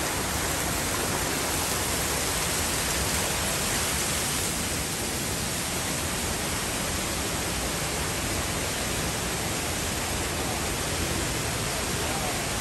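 Steady rush of sulphur spring water tumbling down a stone water slide and pouring from spouts into the pools.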